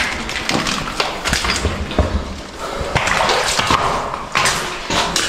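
Footsteps sloshing and splashing through shallow water in a narrow rock-cut tunnel, with irregular knocks and scrapes.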